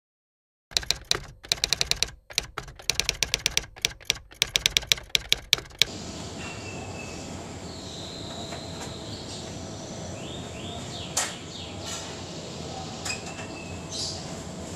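Typewriter keys clacking in a fast, irregular run of sharp keystrokes for about five seconds, then stopping. After that a steady background hiss with a few short bird chirps.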